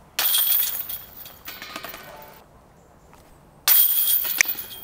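Putted discs hitting the chains of a disc golf basket twice, about three and a half seconds apart: each a sudden metallic jangle of chains that rattles and dies away over about a second.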